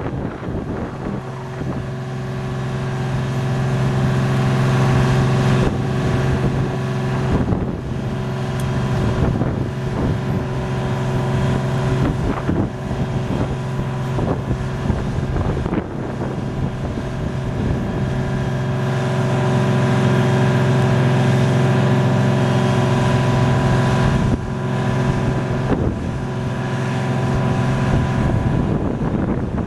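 A fire truck's Detroit Diesel 6V92 two-stroke V6 diesel runs with a steady hum, powering the hydraulics while the aerial ladder is raised and extended. The hum dips briefly a few times, and wind buffets the microphone.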